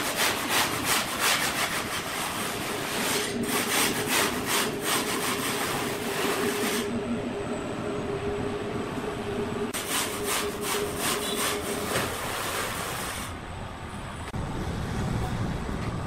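Rhythmic rasping strokes on wood, about three a second, in two runs of several seconds, over a steady machine hum. A low rumble comes in near the end.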